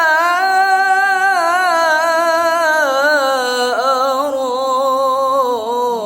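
Solo voice singing a long, ornamented Arabic sholawat phrase in the al-banjari style, unaccompanied, with held notes and wide vibrato. The line steps down in pitch about four seconds in and again near the end.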